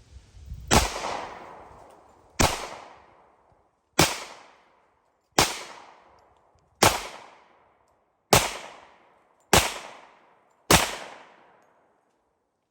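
Glock 30S .45 ACP pistol fired eight times in slow succession, a shot about every second and a half, each crack followed by a fading echo.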